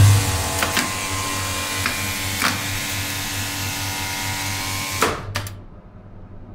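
Relays and contactors of a 1985 Thyssen hydraulic elevator relay controller clicking over a steady electrical hum and hiss while the lift runs. About five seconds in the running noise cuts off with a quick clatter of clicks as the relays drop out, leaving a faint hum.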